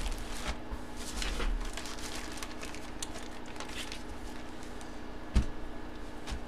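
Plastic packaging rustling and crinkling as bagged items are handled, with a single sharp knock about five seconds in.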